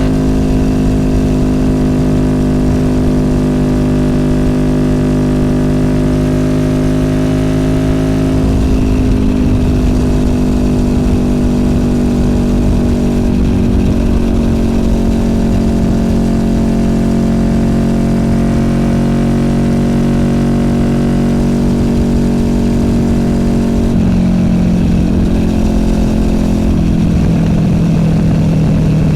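Honda VFR800F's V4 VTEC engine through an SC Project Conic exhaust, running steadily at cruise. The pitch shifts slightly about a third of the way in and eases down near the end as the bike slows.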